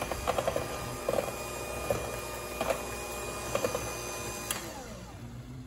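Electric KitchenAid hand mixer running, its beaters whirring through egg, sugar and hot milk in a stainless steel bowl, with a few knocks of the beaters against the bowl. Near the end it is switched off and the motor winds down, falling in pitch.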